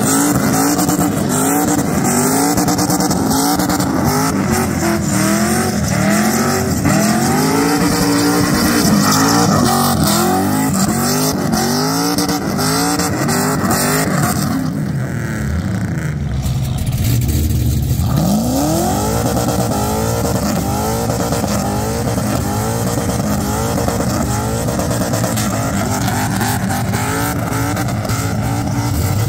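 Car engine revving hard in a burnout, its pitch surging up and falling back over and over, with a loud hiss of spinning tyres over it. About halfway through, the hiss thins out and the revs fall away, then climb in one long rise before the repeated revving starts again.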